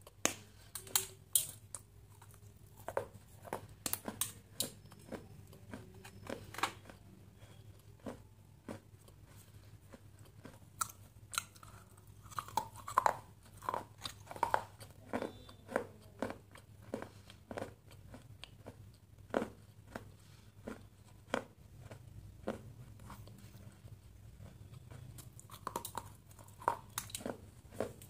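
A person biting and chewing something crunchy close to the microphone: sharp crunches at irregular intervals, with quieter chewing between them.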